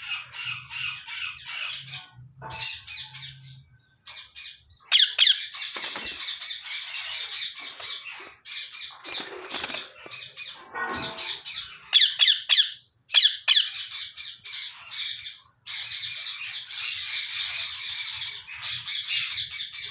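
A parrot squawking and chattering in fast runs of sharp, high calls, broken by short pauses, with a few louder shrieks.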